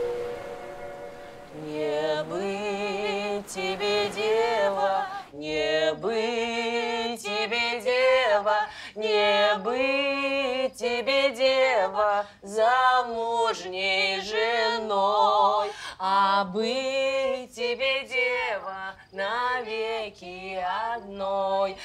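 Women singing a song unaccompanied, in phrases of held, wavering notes. Soft instrumental music fades out in the first second or so before the singing begins.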